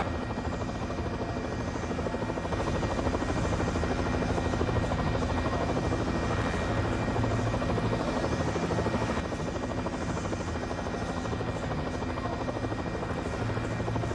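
Helicopter in flight: a steady rotor beat with engine whine.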